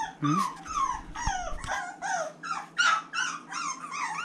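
Young boxer puppy, about three and a half weeks old, whining in a continuous run of short, high cries that fall in pitch, about three a second.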